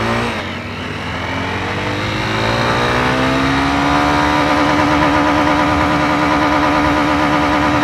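Jawa Perak's single-cylinder engine accelerating hard in second gear, its pitch climbing for about four seconds and then holding steady at high revs.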